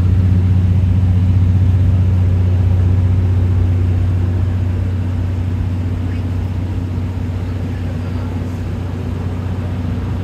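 Steady low drone of a diesel engine running, heard from inside a JNR 12-series passenger coach as the train rolls along; the drone eases off slightly in the second half.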